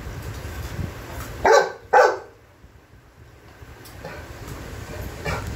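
French mastiff (Dogue de Bordeaux) barking during play: two loud barks half a second apart about a second and a half in, then a fainter one and another loud bark starting at the very end.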